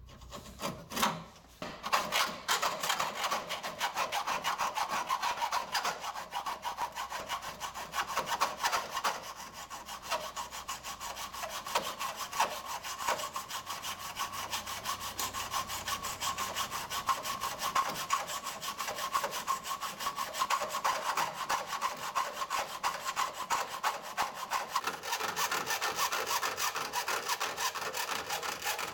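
Hand hacksaw cutting through a steel pillar of a Citroën 2CV body shell, a steady run of back-and-forth strokes that starts about a second and a half in.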